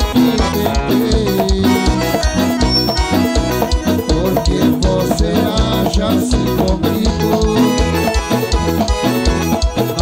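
Live lambadão dance-band music with a fast, steady drum beat under bass and melody.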